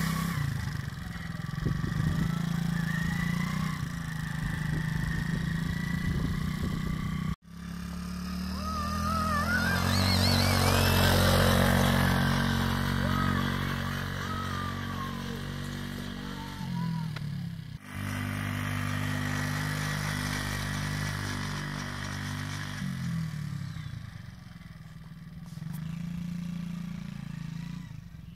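The small engine of a Kazuma Falcon 90cc youth quad runs as it is ridden around a field. Its note holds steady, then dips and picks up again a few times with the throttle, and it is loudest around the middle as the quad passes close. The sound cuts off abruptly twice.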